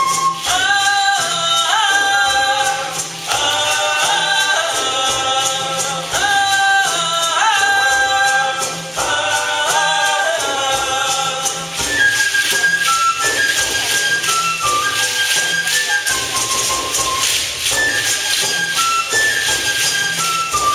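Folk dance music: rattles shaking constantly over a steady drum beat. Through the first half several parts play together, likely voices singing. From about halfway a lone high flute carries a stepping melody.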